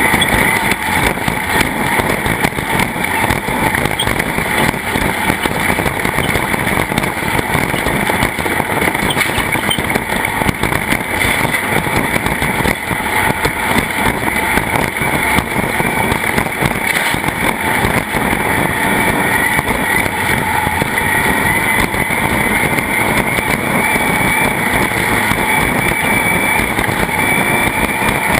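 A racing vehicle's engine running steadily and loud, without a break.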